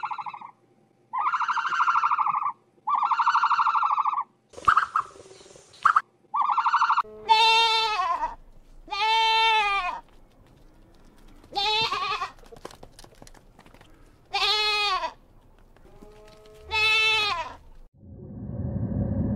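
A goat bleating five times, each bleat about a second long and a couple of seconds apart. Before it come several short buzzy animal calls, and near the end a low rumble starts.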